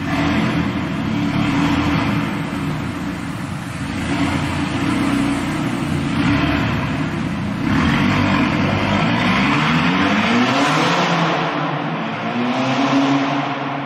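VW Golf Mk6 GTI's turbocharged 2.0-litre four-cylinder accelerating away through the gears, the engine and exhaust note rising in pitch again and again with a surge of loudness every couple of seconds, inside an underground car park.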